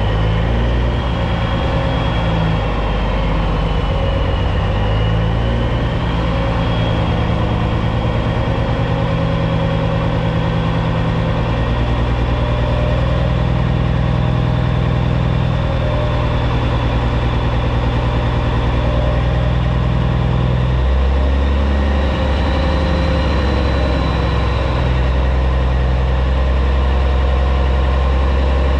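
Caterpillar C15 diesel engine of a 2006 Peterbilt 379 semi running steadily at low revs, its note shifting about two-thirds of the way through.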